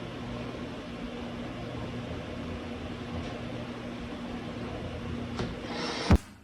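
A steady low hum with hiss, like an appliance or fan in a small room, with a single sharp knock about six seconds in.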